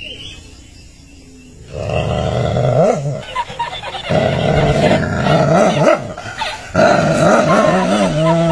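A dog growling at its own reflection in a mirror: long, low, rumbling growls in three stretches with short breaks between, starting about two seconds in.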